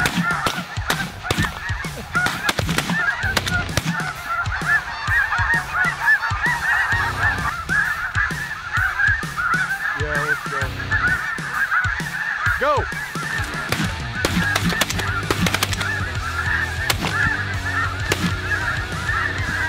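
A large flock of snow geese calling overhead, a dense continuous chorus of high yelping honks. Shotgun blasts fired into the flock ring out repeatedly over it, many in the first few seconds and another run later on.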